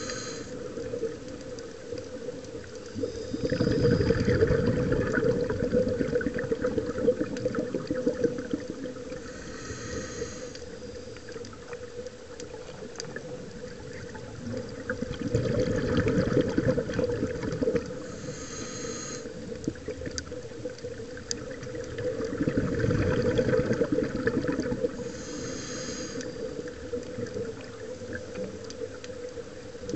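Scuba diver breathing through a regulator underwater: a short hissing inhale, then a louder, longer bubbling exhale, repeated every several seconds over a steady hum.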